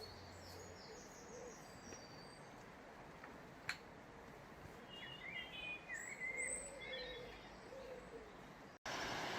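Outdoor birdsong: small songbirds chirping and whistling, with low repeated coos underneath. A single sharp click comes about a third of the way in. Near the end the sound cuts off abruptly and is replaced by a louder, steady rushing noise.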